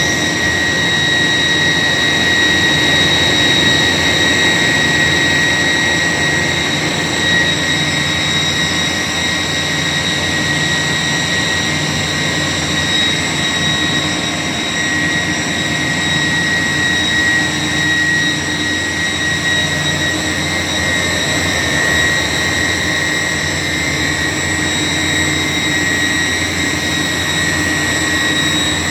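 A 1000-ton York YK centrifugal chiller running steadily. Its compressor gives a constant high-pitched whine over an even rushing hum.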